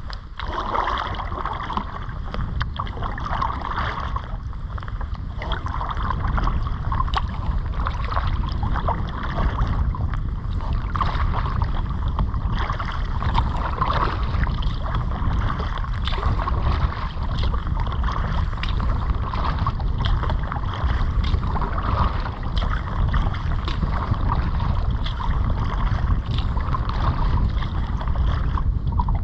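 Kayak paddling: paddle blades dipping and splashing in the water, over a steady wind rumble on the microphone.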